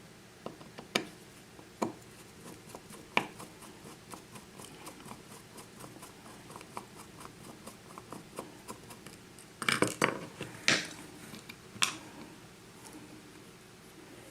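Small metal clicks and taps from a six-pin Russwin lock cylinder being taken apart by hand with tools: a few sharp clicks, a run of fast faint ticks in the middle, and a cluster of louder clacks past the middle.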